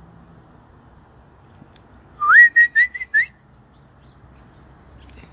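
A clear whistled phrase about two seconds in: one rising note, then four quick short notes at the same pitch.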